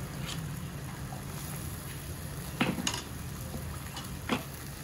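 Clay lids and utensils clinking against a kanom krok pan as the lids are lifted off the cooking cups: a few sharp clinks, the loudest about halfway through and near the end, over a low steady rumble.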